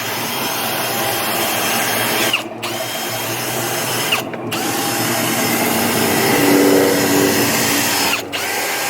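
Power drill drilling out the rivets of a car bumper, running in three long stretches with brief stops between them.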